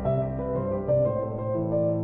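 Instrumental background music: a slow melody of held notes over sustained low tones.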